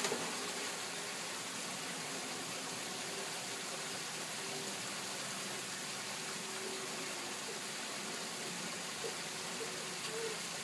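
Steady rush of falling water from a backyard pool's rock waterfall and spa spillover, with a brief splash at the very start.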